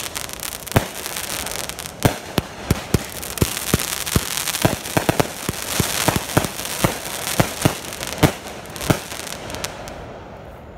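Brothers Blonde Joke 500-gram consumer firework cake firing: an irregular rapid string of bangs, several a second, as shots launch and break, with a hiss between them. The last bang comes about nine seconds in and the noise dies away as the cake finishes.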